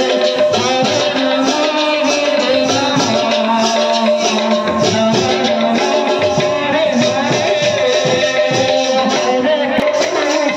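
Live sankirtan devotional music: singing with a barrel drum and jingling percussion keeping a fast, steady rhythm.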